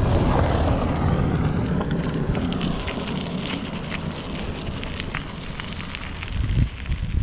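Mountain bike on the move: a steady rushing of wind over the microphone, with the tyres crackling and the bike rattling in many quick clicks over rough ground.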